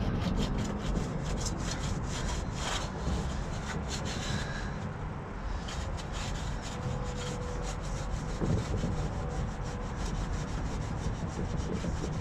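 A cloth being rubbed back and forth over a truck's tailgate, wiping off sprayed cleaner in quick repeated strokes.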